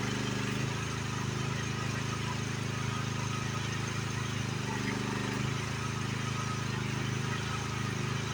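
Engine of a small demolition machine running steadily, its note shifting slightly a little under a second in and again around five seconds in.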